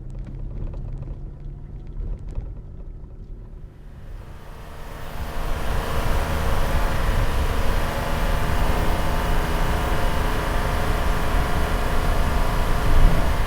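2020 Toyota Tacoma's 3.5-litre V6 running low and steady. About four seconds in, a loud rushing wash of road and wind noise builds over the engine and holds as the truck drives at speed.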